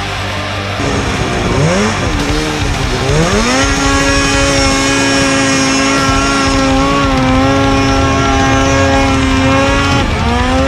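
Snowmobile's two-stroke engine revving: two quick rev blips a second or two in, then climbing to high revs about three and a half seconds in and holding steady, with a brief easing of the throttle near the end before it rises again.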